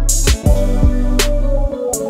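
Background music with a steady beat over a deep, sustained bass.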